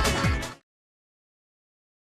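Electronic dance background music with a heavy beat, fading quickly and stopping about half a second in; the rest is silence.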